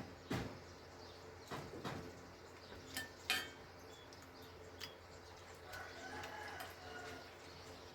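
Spoons and bowls clinking and knocking a handful of times during a meal of noodle soup. A faint bird call comes about six seconds in.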